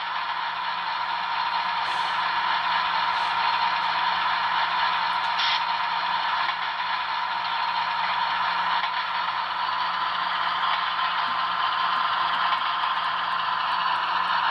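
Sound decoder of a Broadway Limited Paragon 4 HO-scale ES44AC model diesel locomotive playing through its small onboard speaker: a steady hissy rumble with a constant low hum and a steady mid-pitched tone.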